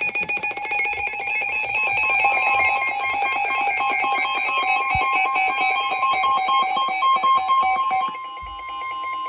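Weather radio alert: a fast pulsing electronic alarm, joined about two seconds in by the steady single-pitch 1050 Hz NOAA Weather Radio warning tone. The pulsing stops about a second before the end, leaving the steady tone. The alert signals that a new warning is being broadcast.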